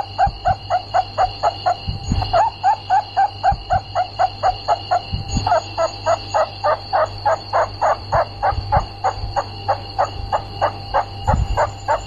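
Rat giving a rapid, even series of short squeaky cries, about four or five a second, over a steady high-pitched ringing and a low hum.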